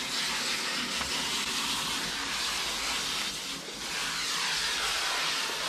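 Water spraying from a hose nozzle with a shampoo-dispensing attachment onto a dog's wet curly coat and the shower floor: a steady hiss that dips briefly a little past halfway.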